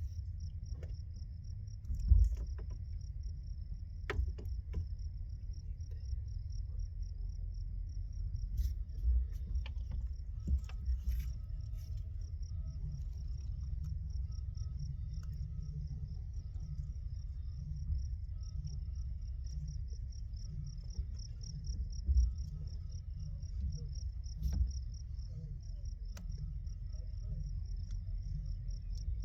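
Crickets chirping in a steady, evenly pulsing trill, over a low rumble. A few short knocks and clicks from handling come through, the loudest about two seconds in and another about three-quarters of the way through.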